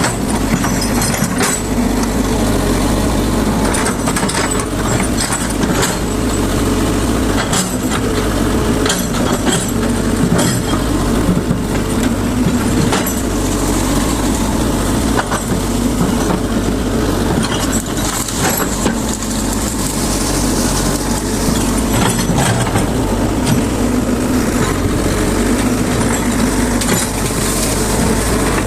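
Excavator's diesel engine running steadily under working load, with many scattered sharp clicks and knocks over it.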